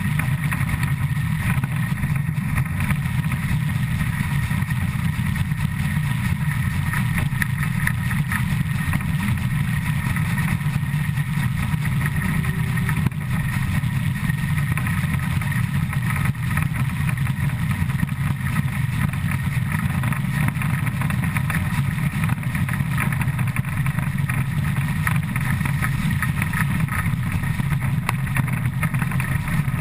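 Škoda-built ČSD steam locomotive 475.179's driving wheels and running gear running at about 100 km/h, heard up close as a loud, steady, unbroken rumbling rush.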